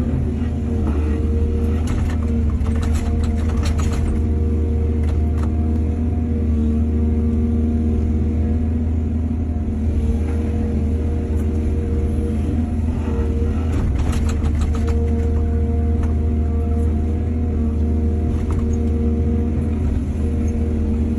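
Heavy diesel engine of an excavator running steadily under load, with two spells of rattling and clattering: one a few seconds in and one about two-thirds of the way through.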